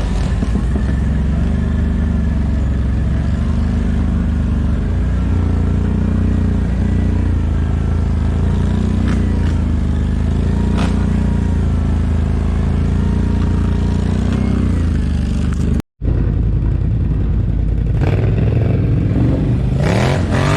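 ATV (quad bike) engine running at a fairly steady speed, its pitch rising and falling slightly with the throttle. The sound drops out for an instant about 16 seconds in, and the engine revs up near the end.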